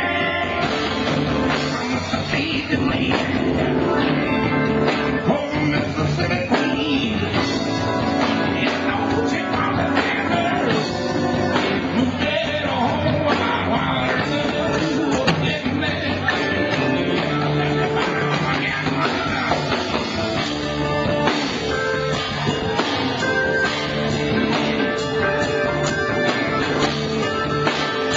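Live rock band playing loud through a club PA: electric guitar over drum kit and bass, recorded from the audience.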